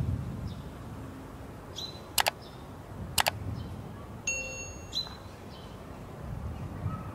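Two sharp mouse-click sound effects about a second apart, then a short bright electronic chime, from a subscribe-and-bell button animation. Under them, a wooden spoon faintly stirs lamb curry in a pan.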